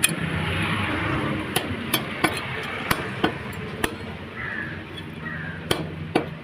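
A butcher's blade chopping quail on a cutting block: a string of about nine sharp, irregularly spaced chops over steady street-market background noise.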